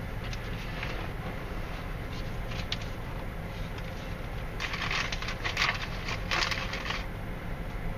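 A car wash attendant's hand-held prep spray hoses down the car ahead, hissing for about two seconds past the middle, over the steady low rumble of an idling car heard from inside the cabin.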